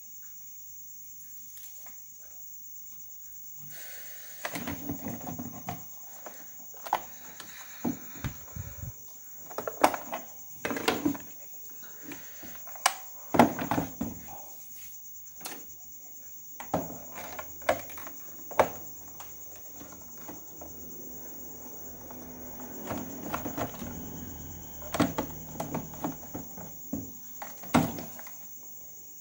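The hard plastic case of a Waxiba XB-312U portable radio being handled and opened with a screwdriver: scattered sharp clicks and knocks of plastic parts, with stretches of rubbing and rustling. A steady high-pitched trill, like crickets, runs underneath.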